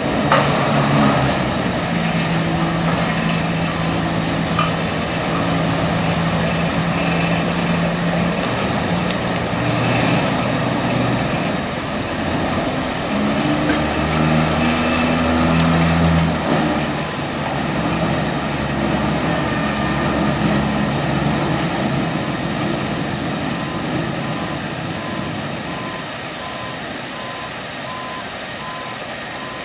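Heavy machine's engine running, its note shifting and growing heavier partway through. In the later part a backup alarm beeps steadily about once a second.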